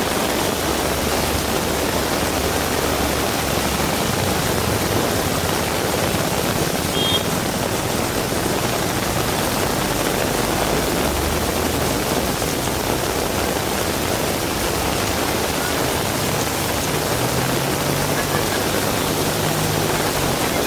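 Heavy rain falling steadily, a dense even hiss. Underneath, at times, the low hum of a passing vehicle's engine.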